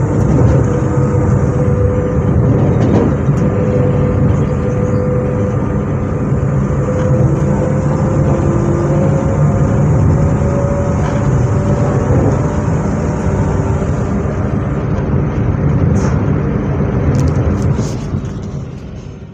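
Z 20738, a Z2N-family double-deck electric multiple unit, running: a steady rumble under whining tones from its traction equipment, one of which rises slowly in pitch, before the sound fades out at the very end.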